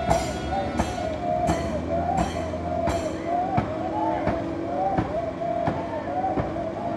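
Music with a sharp percussive beat about every 0.7 s under a wavering, chant-like melody line.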